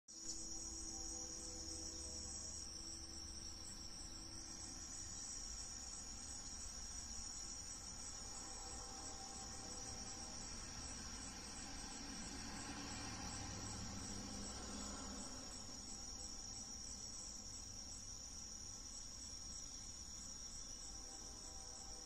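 Steady high-pitched insect trilling, like crickets, running on unbroken.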